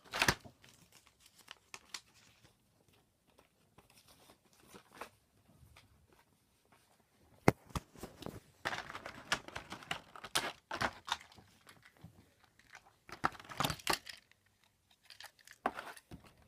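A toy train's box being unpacked by hand: packaging torn open and crinkled in irregular bursts, with scattered clicks and one sharp snap a little past the middle.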